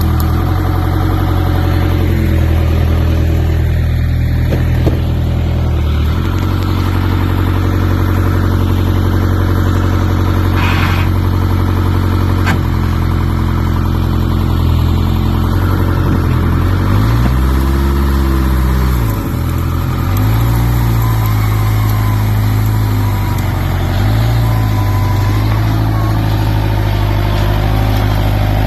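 Case backhoe's diesel engine running steadily. Its revs step up about six seconds in, rise and fall back once about two-thirds of the way through, then change a few more times in smaller steps.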